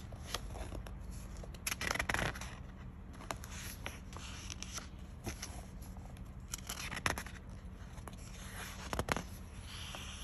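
Pages of a book being turned and handled: paper rustling and sliding in several short, irregular bursts, the loudest about two seconds in.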